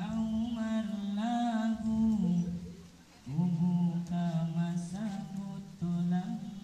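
A single voice singing a slow melody with long held, wavering notes, pausing for a breath about three seconds in.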